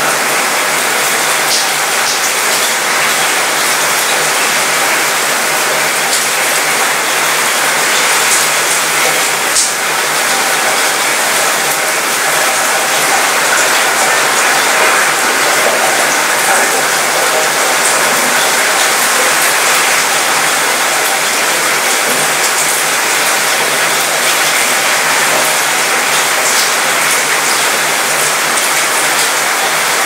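Steady rain falling on a cruise ship's mostly metal balcony, the drops rattling on the metal railing and fittings, with an occasional single louder drop.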